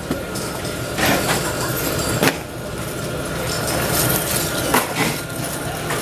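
A few sharp clicks of small metal lock parts handled and fitted together by hand, over a steady factory background noise with a faint constant tone.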